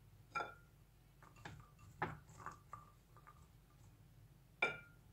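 Scattered light clicks and taps of small, hard pea eggplants being picked over by hand in a ceramic bowl, a few leaving a brief ringing tone from the bowl. The loudest click comes near the end.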